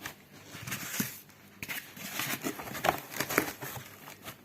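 Packing sounds: irregular rustling and crinkling of packaging with a few short knocks, as a copier developer unit is set into a box with polystyrene foam sheets.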